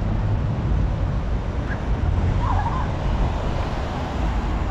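Steady outdoor background noise: a low rumble with an even hiss above it, no clear tones.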